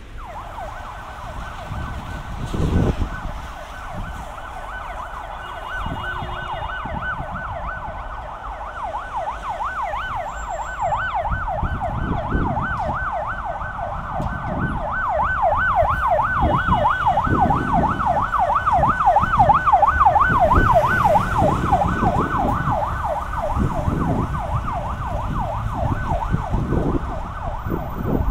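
Emergency vehicle siren in a fast yelp, its pitch sweeping up and down several times a second. It grows louder toward the middle, as if drawing near, over low rumbling street noise.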